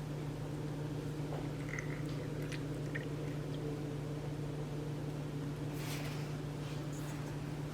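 Steady low hum of background noise, with a few faint small clicks and two brief rustles near the end.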